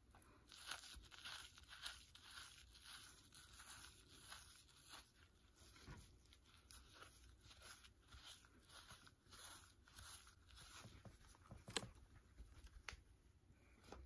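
Faint, irregular scratchy rubbing as a shampoo-soaked terry rag is drawn along wig lace and hair, peeling off softened lace glue, with one sharper scratch near the end.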